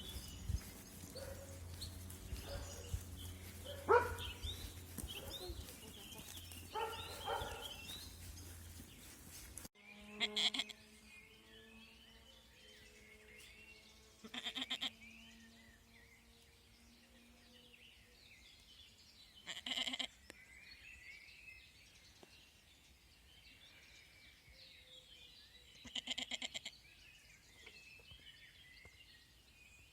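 A young goat bleating four times, a few seconds apart, with small birds chirping in the background.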